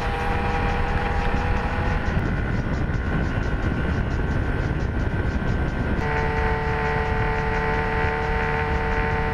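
Motorcycle engine running steadily at cruising speed, with a held engine whine over heavy wind rush on the mount-camera's microphone. The sound changes abruptly twice, about two and six seconds in, where the ride footage is cut.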